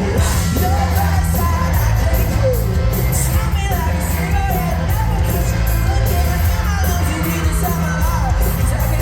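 Live pop-rock band playing at a concert: heavy bass and steady drums under sung vocals, with yells from the crowd.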